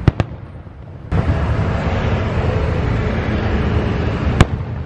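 Aerial fireworks going off. Two sharp bangs come right at the start, then a dense, steady rumble of bursts from about a second in, and one loud bang near the end.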